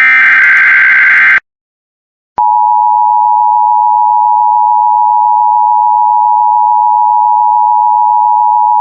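Emergency Alert System tones: a loud SAME header data burst lasting about a second and a half, then a second of silence, then the steady two-tone EAS attention signal starting about two and a half seconds in, which precedes a Severe Thunderstorm Watch message.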